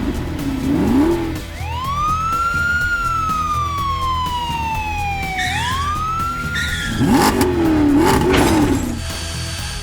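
A siren-like tone, about two seconds in, swoops up in pitch, slides slowly down for about three seconds, then swoops up again, over steady background music. A wavering, engine-like revving sound effect is heard at the start and again about seven seconds in.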